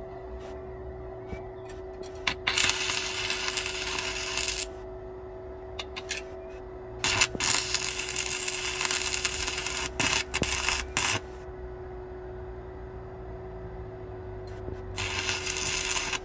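Stick-welding arc from a 6013 rod at about 95 amps: three spells of crackling, about two seconds in, about seven seconds in and near the end, each started by a few short scratching taps as the rod is struck like a match to light the arc. A steady hum runs underneath.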